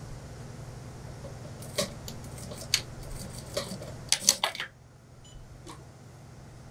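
Industrial sewing machine stitching a seam in suit trousers: a low steady run with a few sharp clicks, then a quick cluster of clicks about four seconds in, after which the machine stops and it goes quieter.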